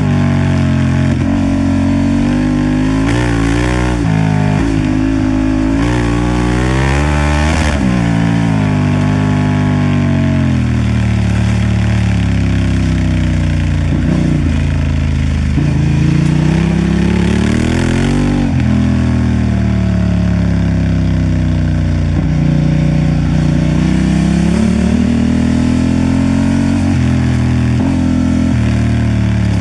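Honda Transalp XL750's parallel-twin engine running under way, its pitch rising and falling as the throttle is opened and closed. There are several quick climbs and drops in the first eight seconds, then slower swells.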